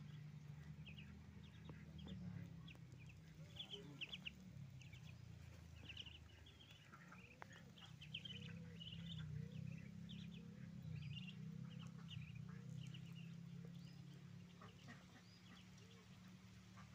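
A group of ducklings peeping: many short, high peeps in quick runs, faint over a low steady hum.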